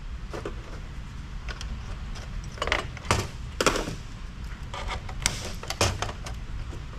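Metal amplifier parts and hand tools clinking and knocking as the amplifier is taken apart: about eight short, sharp hits at uneven intervals.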